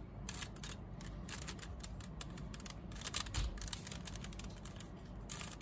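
Plastic 3x3 Rubik's cube being turned by hand, its layers clicking and clacking in quick, irregular runs of turns, with one heavier knock a little over halfway.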